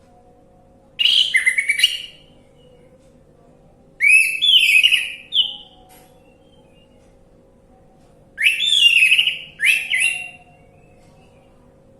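Orange-headed thrush singing: three bursts of rich whistled phrases, each a second or two long and a few seconds apart, the notes sliding up and down. A faint steady hum lies underneath.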